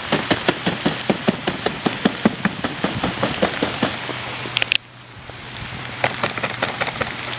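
Wind-driven snow pelting the microphone in a blizzard: a rushing hiss of wind with many irregular ticks and pops. The noise drops abruptly about five seconds in, then builds again.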